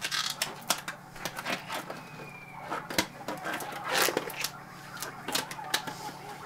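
Scattered clicks, knocks and rustles from handling plastic snake tubs, over a steady low hum.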